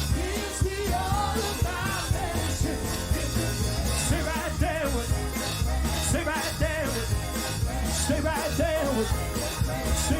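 Live gospel music: a band playing a steady beat with bass under singing voices.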